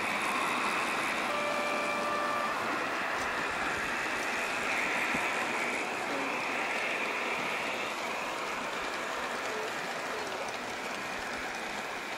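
Model freight train rolling past on the raised garden track, a steady rushing of wheels on rail. About a second in, a single short horn-like tone sounds for about a second.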